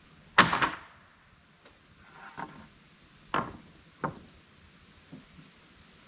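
Rough-sawn boards knocking and clattering against each other as they are set down on a stack: one loud wooden clatter about half a second in, then four lighter knocks.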